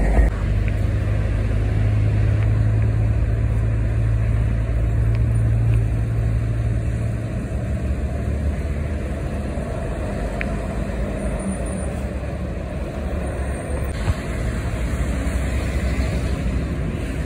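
A road vehicle's engine runs nearby as a steady low hum over street noise. The hum drops away about seven seconds in, leaving a rougher low rumble.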